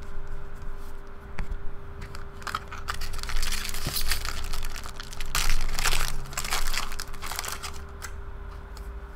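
Red foil wrapper of a Bowman Jumbo baseball card pack being torn open and crinkled, in several rustling bursts, the loudest a little past halfway.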